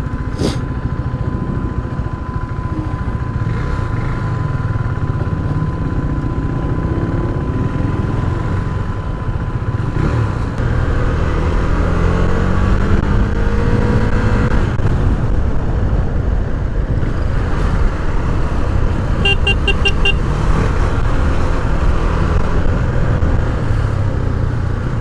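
Motorcycle riding heard through a lapel mic inside a helmet: a steady low wind rumble with the engine underneath, its pitch rising as the bike accelerates about a third of the way in. A vehicle horn sounds briefly a little past the middle.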